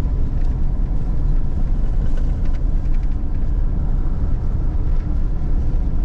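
A vehicle driving on a country road, heard from inside the cabin: a steady low rumble of engine and tyre noise.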